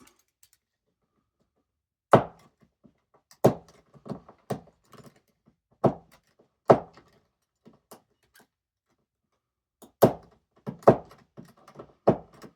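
A firefighter helmet's hard shell and its fittings knocking and clunking as it is handled while a chin strap is worked through an eyelet: about nine separate sharp knocks at irregular intervals, several of them close together near the end.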